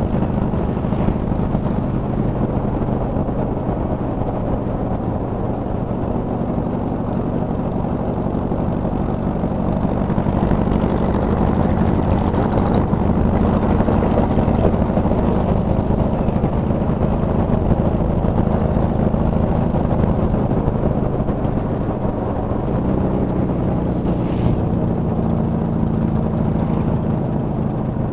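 Boom trike engine running at steady road speed under way, with road and wind rush; its pitch drops a little about three-quarters of the way through.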